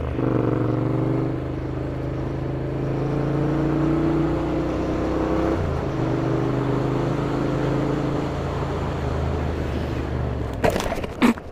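Motorcycle engine running under way with wind rush on the rider's camera, its note broken briefly by a gear change about five and a half seconds in. A few sharp knocks near the end.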